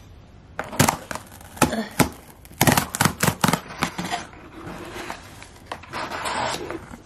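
Cardboard shipping box being opened by hand: a quick run of sharp cardboard clicks and knocks, then a rougher scraping and tearing rustle for the last few seconds.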